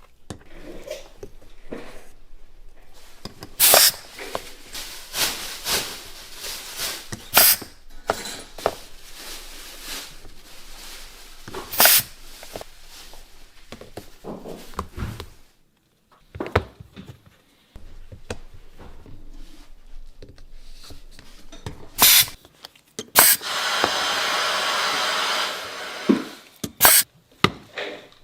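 Workshop handwork: irregular clicks, taps and scrapes of hand tools, with a steady hiss lasting about two and a half seconds near the end.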